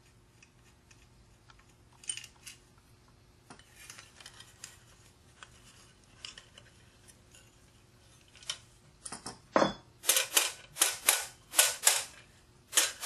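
Metal parts of a Franklin electric motor being taken apart by hand: scattered small metallic clicks, then from about ten seconds in a quick run of loud, sharp metallic knocks, about three a second, as the rotor shaft is worked loose from the end bell.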